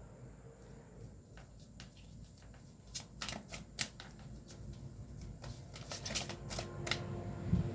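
Tarot cards being shuffled and handled: a run of short, crisp card snaps and flicks. A low rumble builds near the end.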